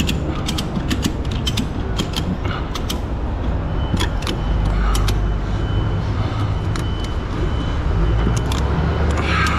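Ratchet strap being worked by hand to tension a cargo load: the ratchet buckle clicks in short irregular runs, thinning out after about four seconds, over a low steady rumble.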